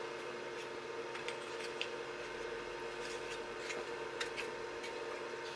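Faint, scattered small clicks and rubbing of thin plywood parts being handled and pressed together into their slots, over a steady background hum.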